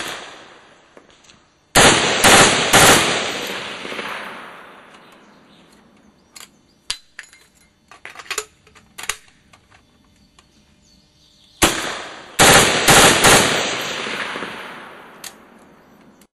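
HK G36K 5.56 mm rifle fired in two quick strings of several shots, about half a second apart, each shot ringing out with a long echoing decay. A few faint clicks fall between the two strings.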